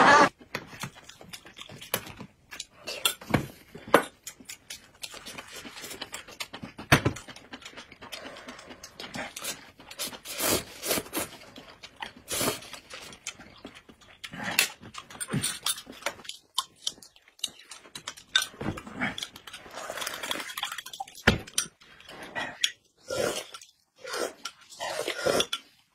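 Close-miked eating sounds: irregular lip smacks, slurping and sipping of noodles and thick corn porridge, with occasional sharp clinks of metal spoons against glass cups.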